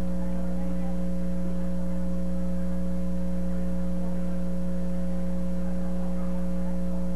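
Steady electrical mains hum on the recording: several constant tones, the lowest of them the loudest. Faint, indistinct voices sit beneath it.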